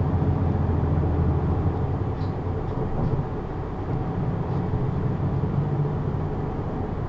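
Isuzu PKG-LV234N2 city bus heard from inside the cabin while running: the diesel engine's low, steady drone eases about three seconds in and then builds again.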